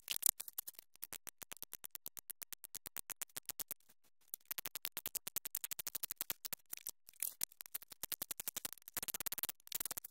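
Ratchet wrench clicking rapidly, about seven clicks a second in runs with short pauses, as it turns a 3/4-inch tap to cut threads into the broken plastic coolant-pipe nipple stuck in a BMW M52TU cylinder head.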